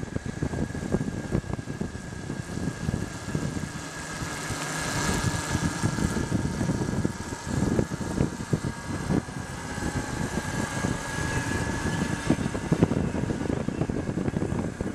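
Electric motorcycle under way on its 24-volt Briggs & Stratton Etek DC motor: a steady high whine from the electric drive over heavy wind buffeting on the microphone. A second, lower whine rises slightly around the middle.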